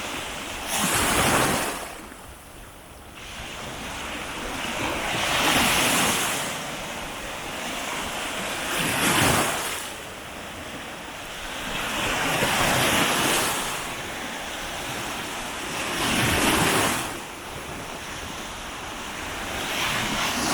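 Baltic Sea waves breaking on the beach, the surf swelling and washing in about every three to four seconds.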